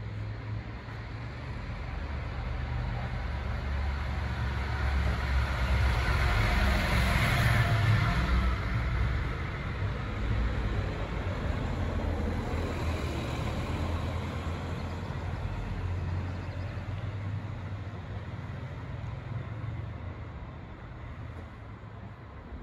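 A motor vehicle driving past, its engine hum and tyre noise swelling to loudest about a third of the way in, then slowly fading away.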